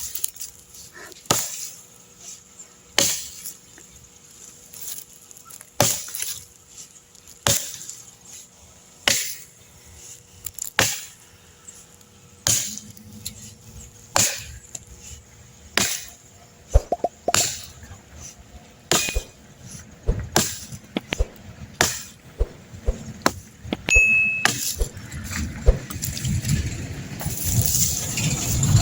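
Machete chopping wood, sharp blows landing about every one and a half to two seconds as sticks are cut for a bonfire. A low rumble builds near the end.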